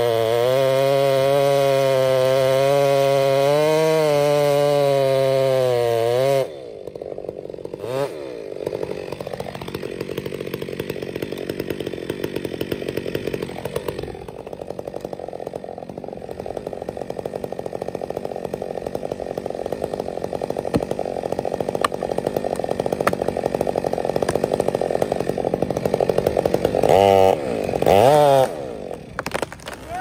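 Two-stroke chainsaw cutting into a large tree trunk at full throttle, steady for about six seconds. The sound then drops to a quieter, rougher running of the saw that grows louder toward the end, with two quick revs near the end.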